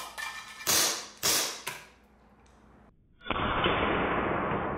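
Umarex Glock 17 Gen4 CO2 blowback BB pistol firing three quick, sharp shots in under two seconds. After a short lull, a long dull rushing noise begins a bit over three seconds in.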